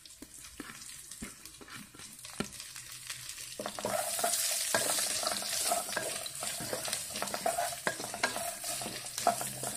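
Sliced onion frying in hot coconut oil, stirred with a wooden spatula. At first there are soft clicks and scrapes; about three and a half seconds in, the sizzle grows louder as the onion is tossed through the oil.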